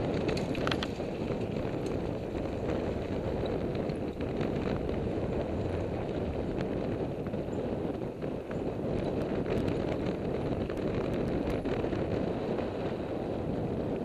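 Wind rushing over a helmet camera while a mountain bike, a 2008 Giant Trance X0, rolls down a dirt singletrack, with scattered ticks and rattles from the bike and tyres on the trail.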